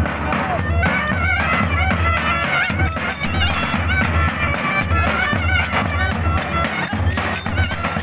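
Clarinets playing an ornamented Turkish folk dance melody over the steady beat of a davul bass drum.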